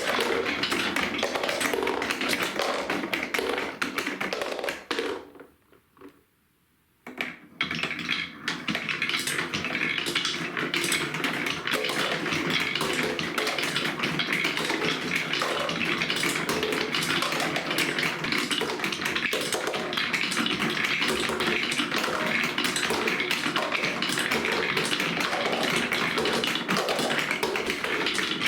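Marbles rolling and clattering along plastic marble-run track: a dense, continuous stream of small clicks. The clatter drops out about five seconds in and picks up again about two seconds later.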